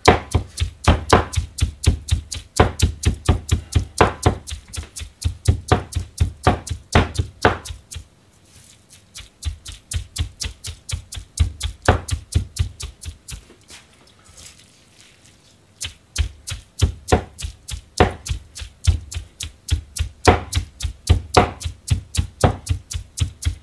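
Rectangular Chinese-style cleaver chopping rapidly on a plastic cutting board, mincing a heap of gyoza filling of cabbage, chives and pork, several strokes a second. The chopping stops for several seconds partway through, with only a stroke or two, then resumes.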